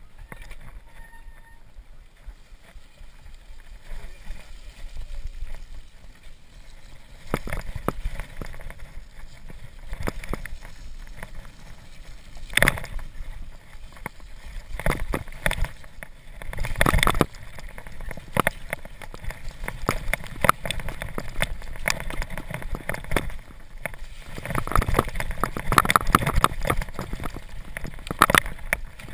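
Mountain bike riding over a slushy, muddy snow-covered trail: tyres squelching through wet slush while the bike rattles and knocks over bumps. Quieter for the first several seconds, then louder and busier from about seven seconds in, with a few hard knocks.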